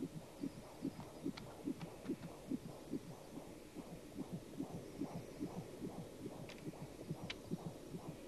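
Fast fetal heartbeat from an ultrasound scan: a soft, even pulse about two and a half beats a second.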